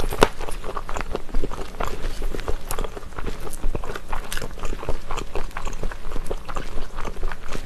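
Close-miked eating sounds of spicy stir-fried chicken feet: a dense, continuous run of wet, sticky clicks and small crunches as the saucy pieces are worked with wooden chopsticks and chewed.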